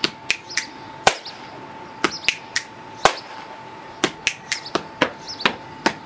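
Body percussion: hands slapping the chest alternated with finger snaps, played as a short rhythmic phrase and repeated, a dozen or more sharp smacks and clicks in uneven groups.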